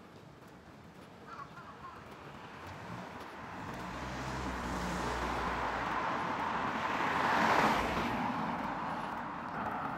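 A car passing on the road: its tyre and engine noise swells, is loudest about seven and a half seconds in, then fades away.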